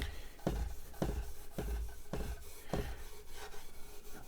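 Fine 4/0 steel wool scrubbed back and forth along the grain of a wooden radio cabinet's worn lacquer finish, with a scratchy stroke about twice a second.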